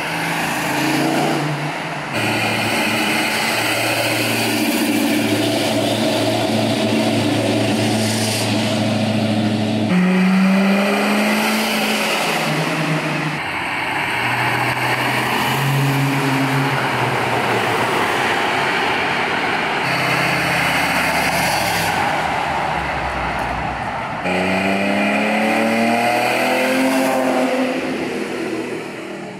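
A run of classic and muscle cars, among them a late-1960s Ford Mustang fastback, a Buick Regal and a Datsun Z, driving past one after another and accelerating, their engines revving up and settling again. One car's engine note gives way abruptly to the next every few seconds.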